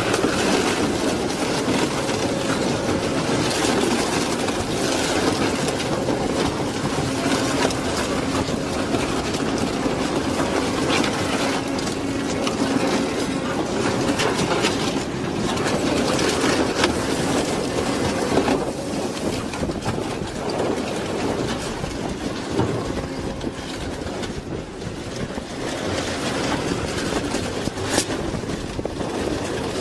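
Industrial shredder's toothed rotor shafts tearing up a small van's steel body: continuous heavy grinding, crunching and crackling of metal over a steady low hum of the drive. A sharp crack stands out about 28 seconds in.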